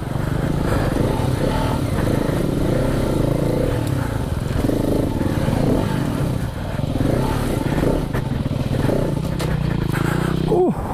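KTM 690 Enduro R's single-cylinder engine running under a varying throttle on a dirt trail, revs rising and falling, with the pitch dropping sharply as the throttle is shut near the end. Rattle and clatter of the bike over rough ground underneath.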